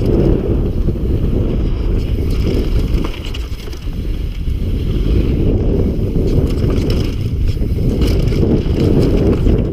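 Downhill mountain bike descending at speed: a steady heavy rumble of wind buffeting the microphone and tyres rolling over wooden boardwalk and loose dirt, with scattered clicks and rattles from the bike over bumps. The rumble eases briefly about three seconds in.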